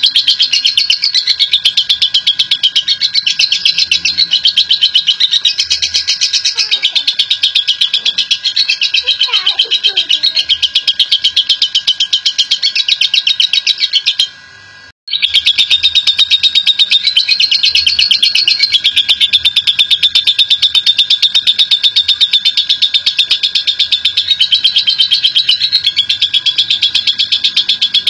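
Lovebird giving its long 'ngekek' chatter: a fast, unbroken run of high repeated notes. It breaks off briefly about halfway through, then starts again.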